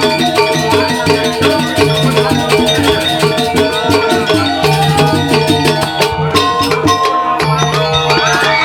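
Balinese gamelan playing dance accompaniment: bronze metallophones and gongs ring out held tones over a dense run of fast, repeated strikes.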